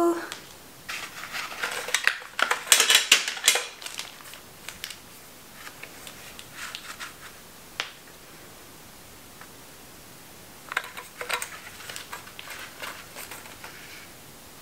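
Handling of a small metal tin holding a Kaweco fountain pen: clusters of clicks, scrapes and rustling about a second in and again after about ten seconds, with a single sharp click near eight seconds.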